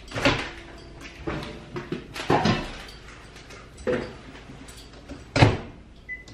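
A microwave oven being loaded: knocks and clatter as the door is opened, then the door shut with a loud thump about five seconds in. A short, high keypad beep follows near the end.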